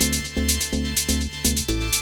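Electronic dance music with a steady, fast beat and a pulsing bass line.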